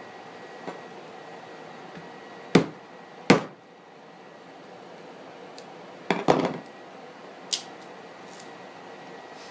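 A few sharp knocks on a tabletop: two about a second apart, a cluster a few seconds later and a lighter click near the end, over the steady whir of a BioLite wood-burning camp stove's fan.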